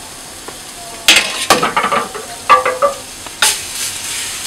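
Cooking utensils knocking and scraping at a hot crepe griddle as a crepe is made: a quick run of clatters and scrapes from about a second in, and one more sharp clatter a little after three seconds, over a faint sizzle of batter.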